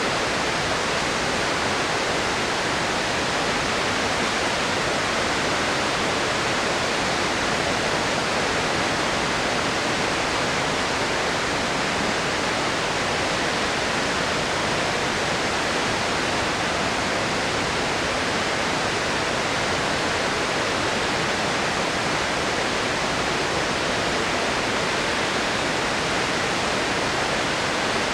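Flood release from the Kawaji Dam, a concrete arch dam, with roughly 200 cubic metres a second of typhoon rainwater pouring out and rushing in a loud, unbroken noise.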